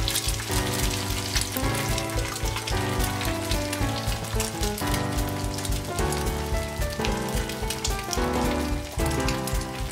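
An egg and bacon strips sizzling in a frying pan, a steady hiss with many small pops, under background music with a steady beat.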